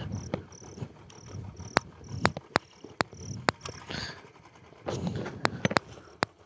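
Crickets chirping in short, evenly spaced high chirps about twice a second, over a scatter of sharp clicks and knocks and a few low rumbles.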